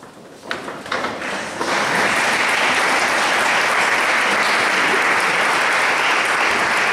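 Audience applause: a few scattered claps at first, swelling to full, steady clapping about two seconds in.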